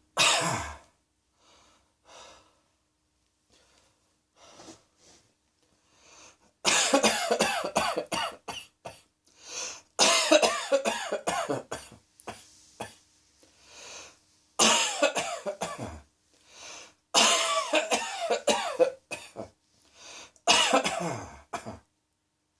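A person coughing: one cough at the start, then after a few seconds of faint breaths, five fits of repeated coughs, each a second or two long, with short pauses between them.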